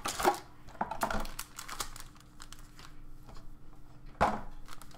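Foil trading-card packs crinkling and rustling as they are picked up and handled, a run of short sharp crackles with the loudest about four seconds in.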